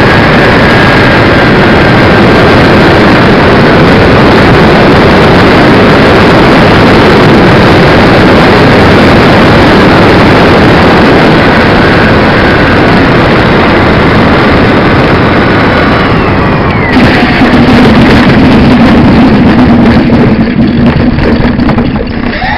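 Radio-controlled DC-6B scale model heard from its on-board camera: loud rushing wind and propeller noise with a faint motor whine easing lower as it descends. Around 16 to 17 seconds in a whine falls away as the throttle comes back, and a steady low hum of the plane rolling out on the runway follows.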